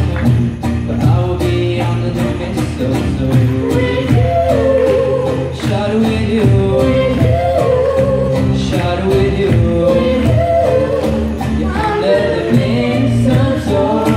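Live acoustic band playing a song: a lead vocal over strummed acoustic guitars and electric bass, with a cajón keeping a steady beat.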